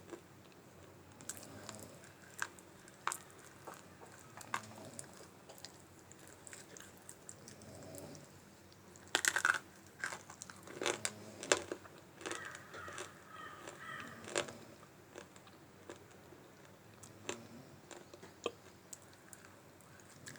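Dry multani mitti (Fuller's earth clay) being bitten and chewed: scattered sharp crunches, loudest in a dense cluster about nine seconds in and again around eleven seconds.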